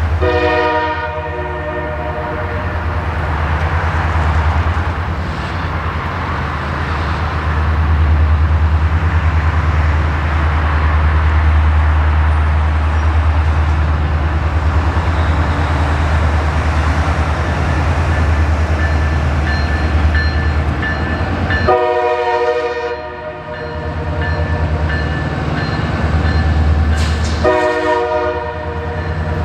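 Two EMD diesel-electric locomotives come past close by with a steady low engine rumble. The air horn sounds three times: a short blast at the start, then two more about six seconds apart near the end.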